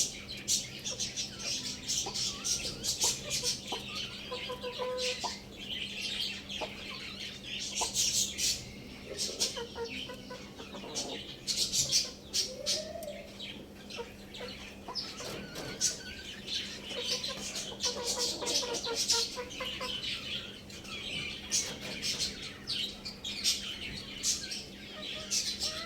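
Chickens clucking among the constant, dense chirping of many small birds, over a steady low hum.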